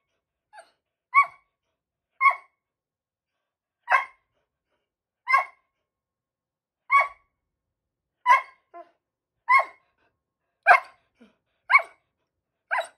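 A dog barking single barks, about ten of them spaced a second or so apart, a few followed by a fainter short yelp. It is demand barking, the dog throwing a fit for a share of a taco.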